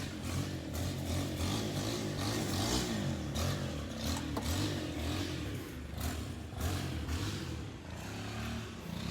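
Pressure washer running: a steady engine drone with a spray hiss that swells and fades.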